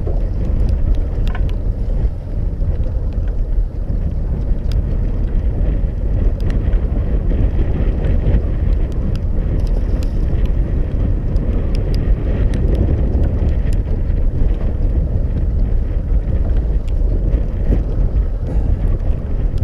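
Steady low rumble of wind buffeting the microphone aboard a small boat at sea, with a few faint clicks.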